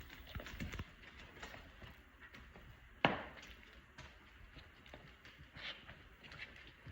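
Twenty-day-old puppies moving about as they play: scattered light scuffs and taps, a few thumps at the start and one sharp knock about three seconds in.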